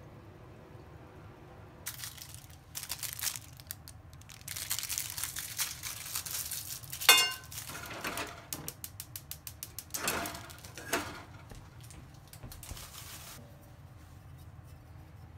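An iron frying pan and a metal ladle clattering on a gas stove: bursts of scraping and knocking, with one loud ringing metal clank about seven seconds in, a quick run of clicks just after it, and two more knocks around ten and eleven seconds.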